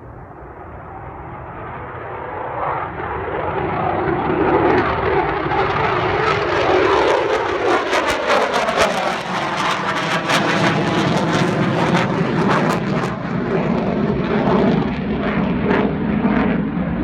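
Military fighter jet's engines roaring as it takes off in a steep climb and passes. The noise swells over about four seconds into a loud roar, crackling in the middle as the pitch sweeps downward.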